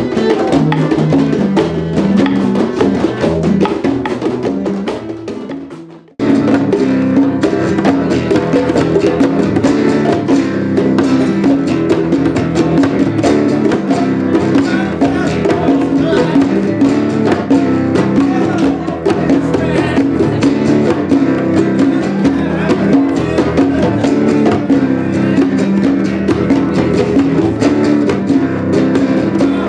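Live hand-drum jam on congas and djembes with a strummed acoustic guitar. It fades out about six seconds in, and another stretch of drumming and guitar starts abruptly.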